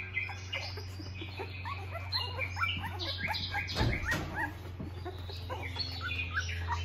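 Newborn Australian Shepherd puppies squeaking while they nurse, many short rising squeaks overlapping one another over a steady low hum. A brief bump about four seconds in.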